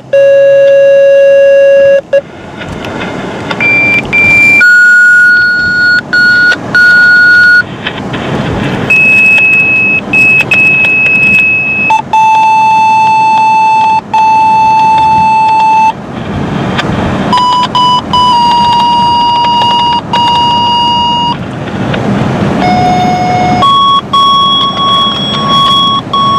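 Radio activation tones for outdoor warning sirens: a run of steady beeps, each held one to four seconds before switching to a new pitch, often a short tone followed by a longer one.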